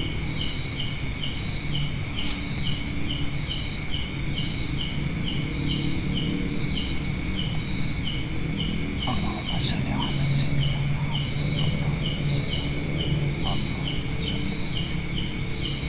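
Night insects: a chirp repeating evenly, a little under twice a second, over a steady high-pitched drone of other insects.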